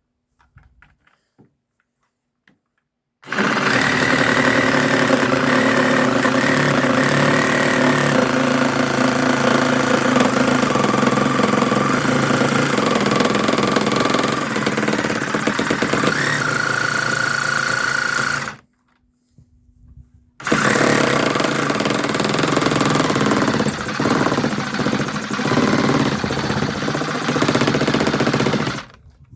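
DeWalt 18V XR compact cordless reciprocating saw cutting through a railway sleeper. It starts about three seconds in and runs loud and steady for about fifteen seconds, stops for about two seconds, then cuts again for about eight seconds before stopping near the end.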